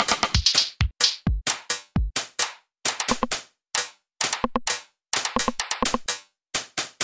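Electronic dance music: a drum-machine beat of sharp, clipped hits, several a second, broken now and then by brief gaps.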